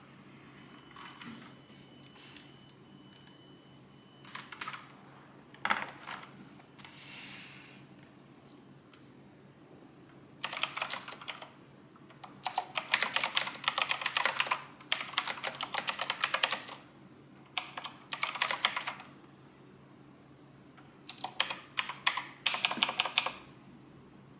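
Typing on a Dareu EK145 keyboard: several bursts of rapid keystrokes starting about ten seconds in, after a few scattered key clicks and a brief rustle.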